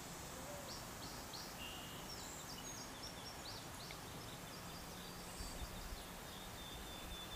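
Faint outdoor ambience: a steady background hiss with several small birds chirping and calling in short, high notes.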